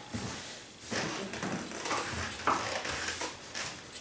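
Phillips screwdriver turning a screw out of a built-in oven's metal mounting frame: a few faint, irregular clicks and scrapes of metal on metal.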